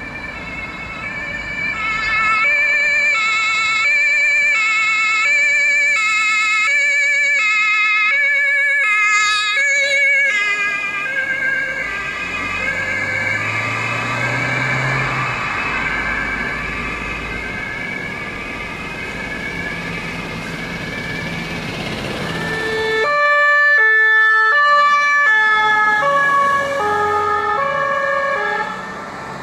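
German two-tone emergency-vehicle sirens (Martinshorn) on vehicles driving past one after another. The first siren switches steadily between a high and a low note for about the first ten seconds. A vehicle engine rises in between, and near the end a second two-tone siren sounds loudly for a few seconds.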